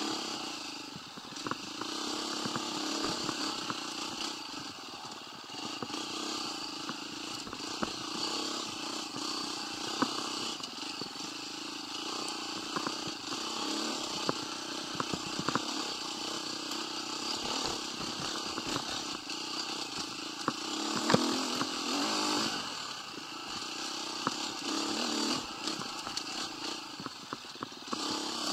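125cc motorcycle engine running under way, its note rising and falling with the throttle. Scattered short clicks and knocks are heard over it.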